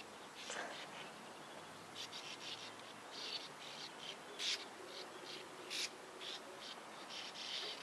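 Sand martins calling: short, high chirps in quick, irregular clusters, with two louder, sharper calls a little past the middle.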